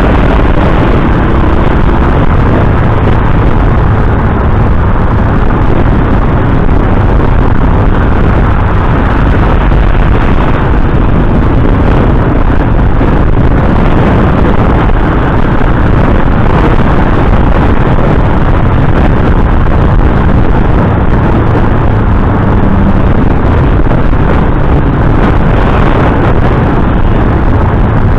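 Motorcycle riding along at a steady speed, its engine running under heavy wind buffeting on the microphone: a loud, steady rumble.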